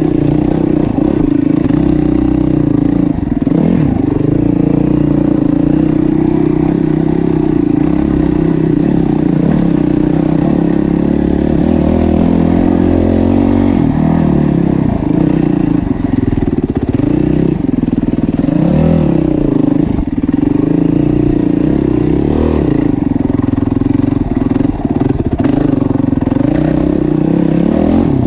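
Yamaha WR450F single-cylinder four-stroke enduro engine being ridden. Its note rises and falls continually with the throttle.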